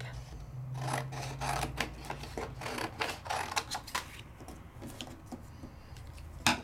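Sheet of heavy 300 gsm cotton watercolor paper being cut down to size, a run of small clicks and scrapes, with a sharper knock near the end.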